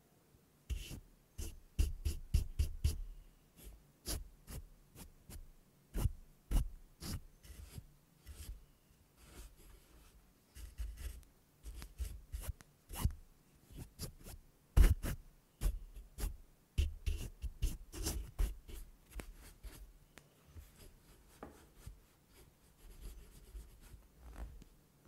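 Fluffy makeup brush swept and dabbed against a RØDE mini USB microphone close up: fast, irregular scratchy brush strokes with low thuds on the mic, softer over the last few seconds.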